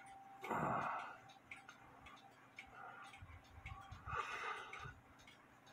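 A mechanical clock ticking steadily, about two ticks a second, with two louder breaths near the microphone, one about half a second in and one about four seconds in.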